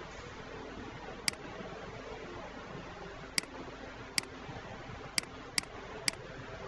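Computer mouse clicking six times, single sharp clicks a second or two apart with the last three closer together, over a steady low hiss of room noise.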